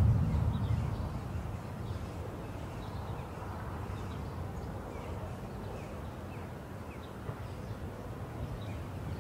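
Chopped onions sizzling in oil in a frying pan, with many faint crackles. A wooden spoon stirring and scraping the pan at the start.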